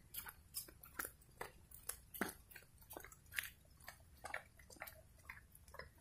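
Faint footsteps of a person walking, a short step sound about twice a second.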